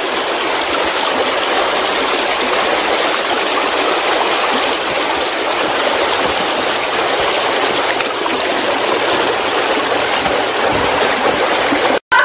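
Waterfall sound: a steady, even rush of falling water with no pitch to it, cutting off abruptly at the very end.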